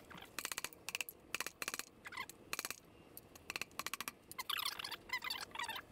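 Fast-forwarded tapping with a mallet to work a seized cylinder barrel off a Volkswagen 25 hp air-cooled engine. It comes through faint, as short clusters of quick clicks every half second or so, with chirpy sped-up squeaks near the end.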